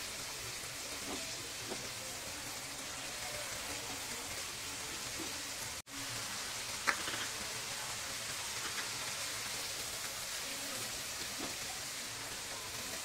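Chopped onion and cumin seeds sizzling steadily in hot oil in a nonstick frying pan, stirred with a silicone spatula. The sound cuts out for an instant just before the middle, and there is one light tap a second later as green chillies are added.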